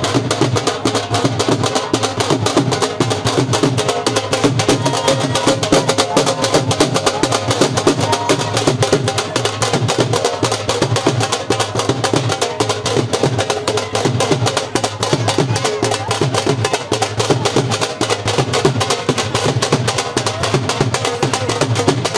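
Several dhol drums beaten together with sticks in a fast, dense, steady rhythm.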